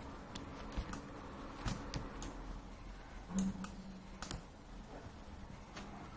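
Scattered, irregular clicks from a computer mouse and keyboard, about ten of them, over faint room tone.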